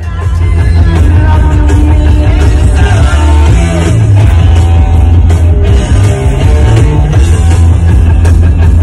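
Loud rock music with a heavy bass and drums.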